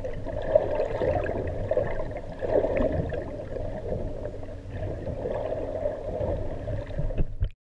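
Fishing boat at sea: a steady low rumble with water gurgling and splashing, cutting off suddenly near the end.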